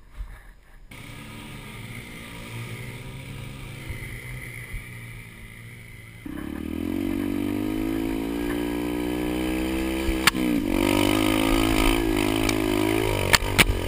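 Yamaha 125 dirt bike engine running under throttle. It gets much louder about six seconds in as the bike climbs, its pitch slowly rising, with a knock and a brief dip in pitch about ten seconds in and a couple of sharp knocks near the end.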